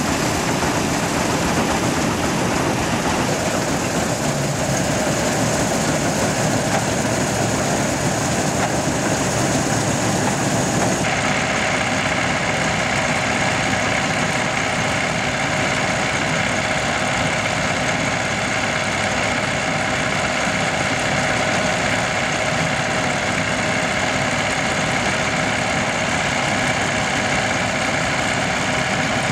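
1963 Aktiv combine harvester running steadily at work cutting wheat, its engine and machinery making a continuous drone. About eleven seconds in the sound changes abruptly, the hiss falling away and a steady whine standing out over the engine.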